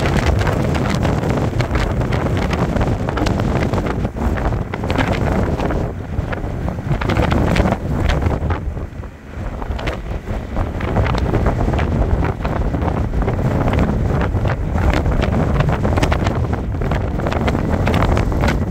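Stiff wind buffeting the microphone: a loud, gusty rumble that eases briefly about nine seconds in.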